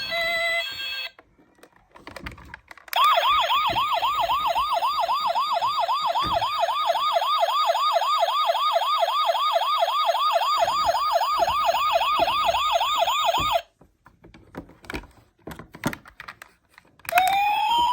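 Toy ambulance's electronic siren in a fast yelp, sweeping up and down about four times a second for some ten seconds, then cutting off suddenly. Scattered light clicks and knocks of handling follow, and near the end a slower siren wail starts, rising in pitch.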